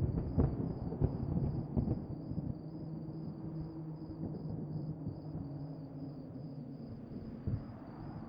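Low rumble of thunder in a spooky ambience soundscape. It breaks with a few sharp cracks at the start and rolls away over several seconds, over a steady low drone, with a single thump near the end.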